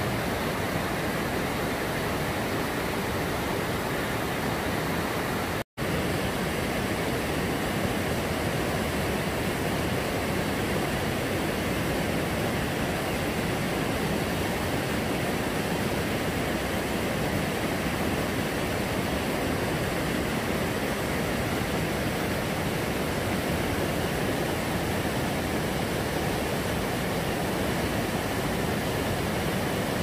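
Mountain stream rushing over boulders and small rapids, a steady even rush of water. It cuts out for an instant about six seconds in, then resumes unchanged.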